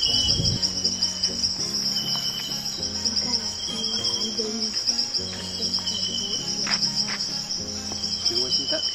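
Steady, high-pitched chorus of tropical insects, a continuous finely pulsing buzz.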